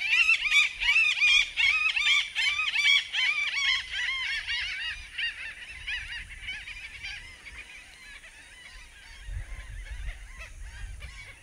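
A flock of waterbirds calling all at once, with many short, overlapping, rising-and-falling calls. The calls are loudest at first and thin out and fade over the last several seconds.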